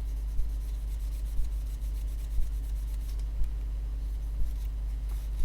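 Shirt fabric rubbing over a phone's screen to wipe it clean, a faint dry rubbing over a steady low hum, with a soft tick about once a second.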